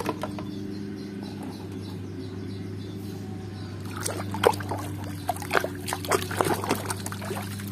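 Water sloshing and splashing in a plastic tub as a hand scrubs muddy toys in it, the splashes coming irregularly and more often in the second half, over a low steady hum.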